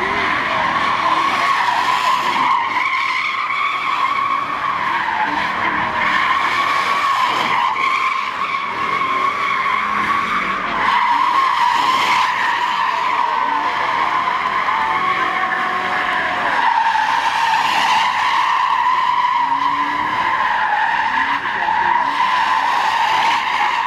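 A GMC pickup truck's tires squeal without a break as it spins donuts, one continuous screech that wavers slightly in pitch.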